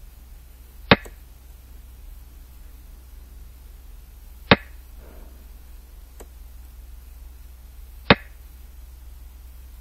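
Xiangqi board program's piece-move click, sounding three times about three and a half seconds apart as each piece is placed, over a steady low hum.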